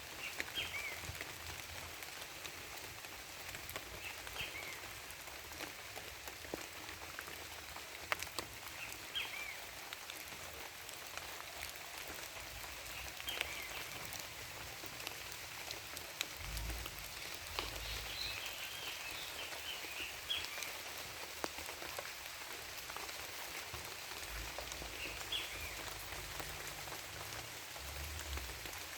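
Woodland ambience: a steady even hiss with many light scattered ticks, and a bird giving short chirps every few seconds, in a cluster of several chirps about two-thirds of the way through.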